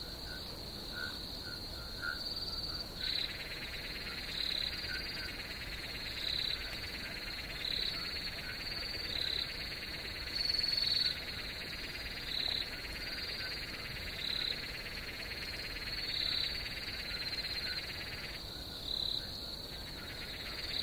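Night-time nature ambience: a steady high trill with short calls repeating every one and a half to two seconds, and a denser chirring layer that joins a few seconds in and drops out briefly near the end.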